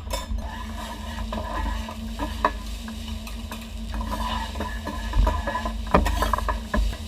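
Cooking and dish clatter: utensils stirring and clinking against pans and dishes, with a few sharper knocks, over a steady low hum.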